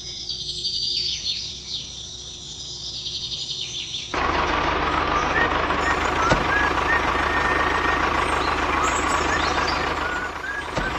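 Birds chirping, then about four seconds in a sudden switch to a louder, steady engine-like noise with a low hum, with chirps still heard over it.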